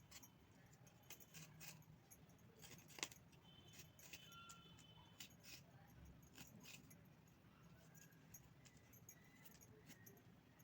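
Near silence, broken by faint scattered clicks and taps, with one sharper click about three seconds in and a few faint high tones near the middle.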